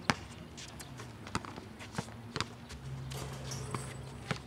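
Basketballs bouncing on an outdoor concrete court: a string of sharp slaps at irregular intervals, about one every half second to second.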